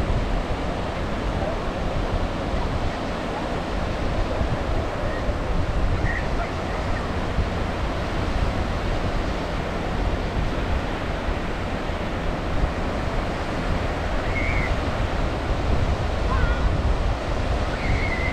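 Ocean surf breaking and washing up on a sandy beach: a steady rush of waves.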